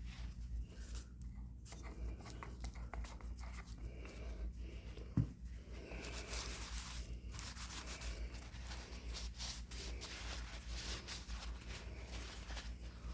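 Walnut oil being rubbed into the wooden parts of a hand plane: scratchy rubbing strokes that grow louder about six seconds in, with a single thump about five seconds in.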